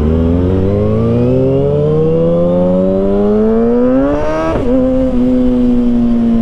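Kawasaki ZX-6R inline-four engine accelerating in gear, its pitch rising steadily, then an upshift about four and a half seconds in drops the revs, and it carries on at a steady, slowly falling pitch.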